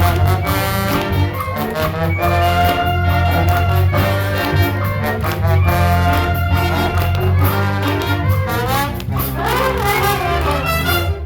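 Wind band playing a piece, brass to the fore, over a steady bass line.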